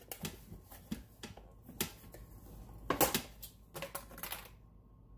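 Scattered light clicks and knocks of kitchen handling, the loudest about three seconds in and a quick run of several near four seconds.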